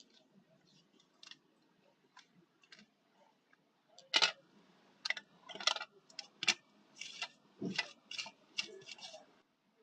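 A series of irregular sharp clicks and light knocks, about a dozen, mostly from about four seconds in, the loudest just after that.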